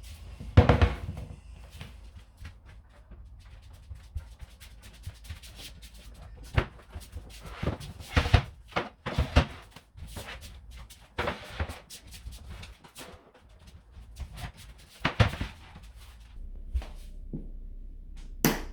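Music with drums, with irregular thuds and knocks over a low steady hum, the loudest knock near the end.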